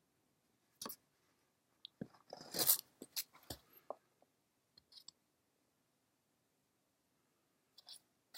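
Cardboard shoebox being handled: a few short scrapes and taps, busiest from about two to four seconds in, with long quiet gaps between.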